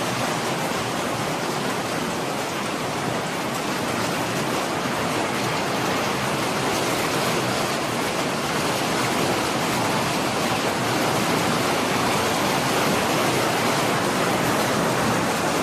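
Steady, even rushing noise of a storm, such as wind-driven rain or wind, with no rhythm or tones and little deep rumble; it starts abruptly.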